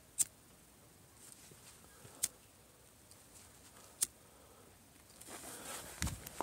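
Three sharp clicks about two seconds apart, a lighter being struck at a firecracker fuse, the last one lighting it. Near the end the lit fuse hisses and footsteps start crunching in snow.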